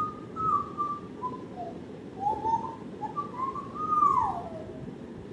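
African grey parrot whistling a string of short notes, ending in a longer whistle that falls in pitch about four seconds in.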